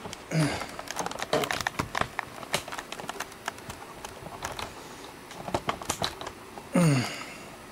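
Handling noise: a string of irregular light clicks and knocks as the camera and gear are moved about. Two short sounds fall in pitch, one just after the start and a louder one near the end.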